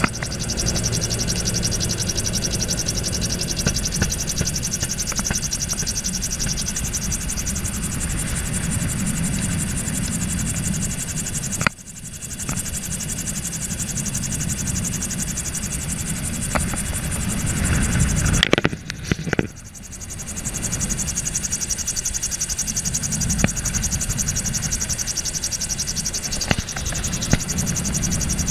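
Gyrocopter's engine and pusher propeller running steadily in flight, a dense buzz mixed with wind noise in the cockpit. The level drops sharply for a moment about twelve seconds in, and again near twenty seconds.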